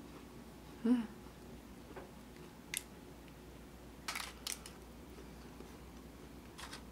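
Crisp crunching bites and chewing of a fried streusel bun with red-bean filling, in a short cluster about four seconds in and once more near the end, with soft ticks and paper rustling between. A brief low hum-like mouth sound about a second in is the loudest thing.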